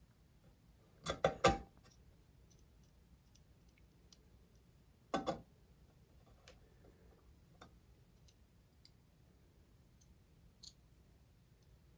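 Small screws and a screwdriver clicking and tapping on the Mac Mini's metal internals as the small screws are driven back in: a quick run of three clicks about a second in, another click around five seconds, a sharp tick near the end, and faint ticks between.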